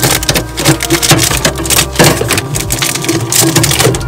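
Plastic packaging crinkling and items knocking as food is rummaged through in a small fridge: dense, irregular crackles and clicks.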